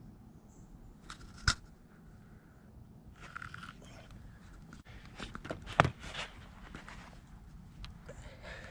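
Two sharp knocks, about a second and a half in and near six seconds, among scuffing footsteps and rustling.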